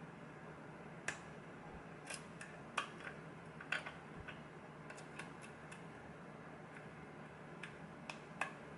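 Irregular small metallic clicks of a lock pick and tension wrench working the pins of a pin-tumbler lock with a Kwikset keyway, about a dozen in all, over a low steady hum.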